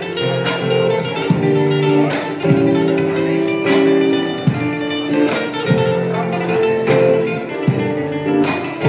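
Live acoustic music: two nylon-string guitars playing chords and a melody, with a cajón behind them. Sharp strummed accents come roughly once a second.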